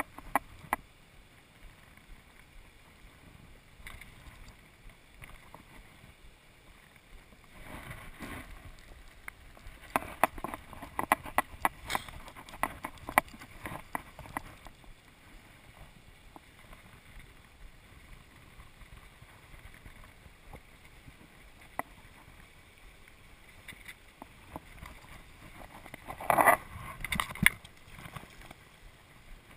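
River current runs low and steady while a hooked fish is played on a fly rod. There is a run of sharp clicks about a third of the way in, and a louder splashing burst near the end as the fish thrashes at the surface.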